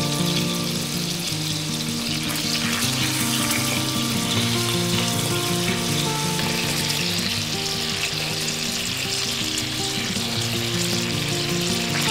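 Hamburg steak patties frying in a stainless steel pan, sizzling loudly and steadily as water hits the hot oil.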